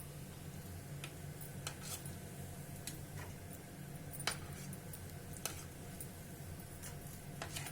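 Scattered light clicks and taps of kitchen utensils, the sharpest a little over four seconds in, over a steady low hum.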